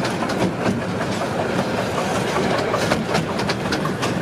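Riding noise of a 15-inch-gauge miniature railway train in motion: a steady rumble with the wheels clicking irregularly over the rail joints.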